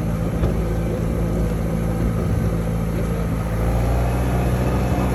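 A vehicle's engine running steadily with road noise while driving along, heard from on board as a constant low hum.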